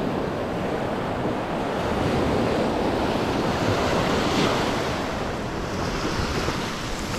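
Ocean surf on a sandy beach: waves breaking and washing up the sand, the wash swelling a couple of seconds in.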